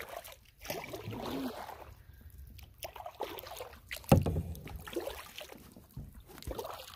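A Swift Solo Prospector canoe being paddled on calm water: irregular swishes and drips of the paddle strokes, with a few sharp knocks, the loudest about four seconds in.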